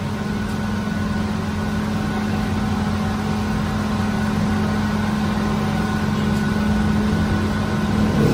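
Steady hum of bakery machinery running, a constant drone with a low, unchanging tone.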